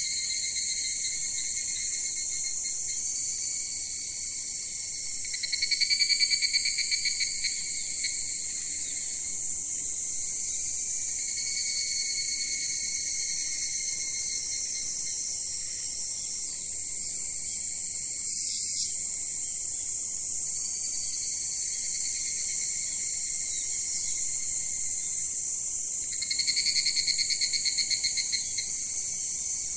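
A chorus of crickets and other singing insects: several steady high trills at once. A nearer insect's pulsed trill swells louder twice, for two or three seconds each time, about five seconds in and again near the end.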